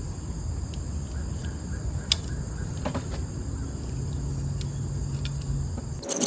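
Insects chirring steadily over a low rumble, with a few short sharp clicks and ticks scattered through.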